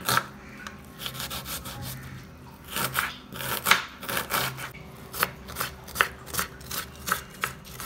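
Kitchen knife chopping a red onion on a wooden cutting board: the blade taps sharply against the board, only a few soft cuts at first, then a steady run of about three chops a second from around three seconds in.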